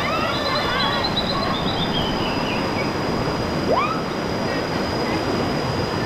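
Steady rush of river water through rapids, with high-pitched whoops and screams from people over it, mostly in the first couple of seconds and again about four seconds in.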